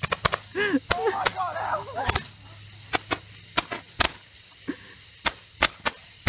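Saturn rocket fireworks going off: a dozen or more sharp cracks at uneven intervals. A person shouts among the first few in the opening two seconds.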